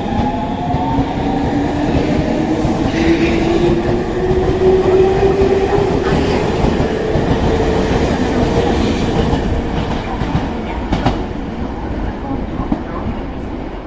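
Nankai electric train pulling out of the station: the traction-motor whine rises steadily in pitch as it accelerates, over a low rumble of wheels on the rails, with a few knocks near the end.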